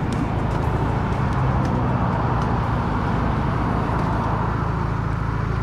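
Motorcycle engine idling steadily while the bike stands still, a low even running sound.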